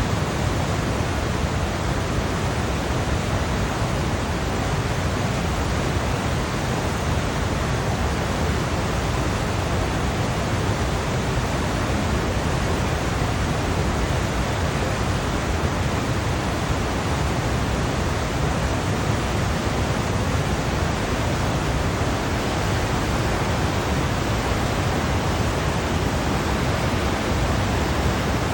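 Ocean surf as a steady, even rushing noise, heavy in the low end, with no distinct waves swelling or breaking.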